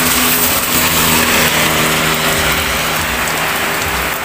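Rain falling steadily, with a small motorcycle engine running at a steady, even pitch underneath.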